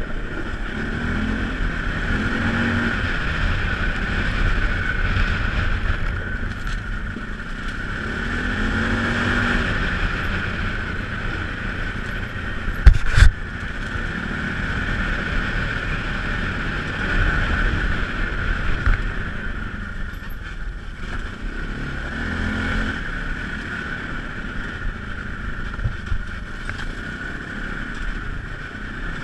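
Polaris Sportsman ACE 570 ATV's 570 cc single-cylinder engine running on the trail, the revs rising and falling with the throttle. There is a single sharp, very loud knock about halfway through.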